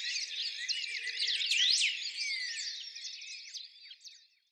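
Many small birds chirping and singing at once, a busy mix of short chirps and quick rising and falling whistles; it fades out near the end.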